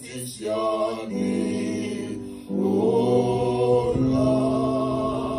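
A woman singing a worship song into a microphone, drawing out long held notes, with short breaks near the start and about halfway through.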